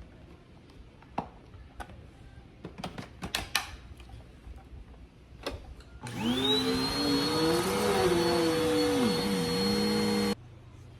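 Dirt Devil Vigor cyclonic pet vacuum: a few clicks and knocks, then the motor switches on about six seconds in and winds up to a steady high whine. Its lower hum dips and rises while it runs, and it cuts off suddenly after about four seconds.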